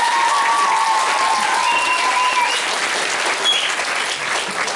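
Audience clapping steadily, with a long high held note, such as a whistle or a cheer, sounding over the clapping for the first half.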